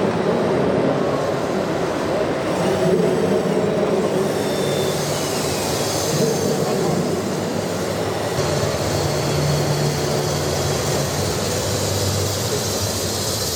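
Radio-controlled scale construction machines running: a steady mechanical din with low whining tones that shift in pitch every second or two.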